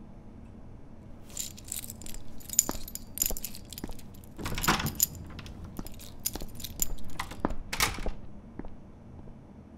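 A bunch of keys jangling in irregular clinks and rattles, starting about a second in and stopping about eight seconds in.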